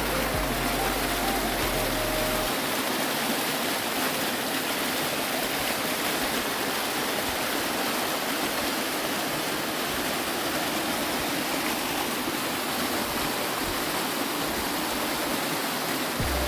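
Steady rushing water of a small waterfall pouring over rocks.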